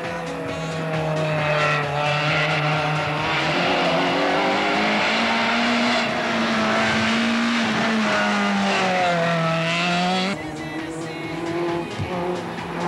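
Rally car engines running at high revs as cars race past, the engine note rising, holding and falling with gear changes. About ten seconds in, a cut brings a quieter engine sound.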